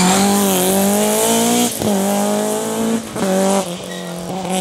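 BMW M3 E30 Sport Evolution rally car's 2.5-litre four-cylinder engine held at high revs, its note breaking off briefly twice, about one and a half and three seconds in, and running somewhat quieter near the end, over a steady hiss of tyres on the stage.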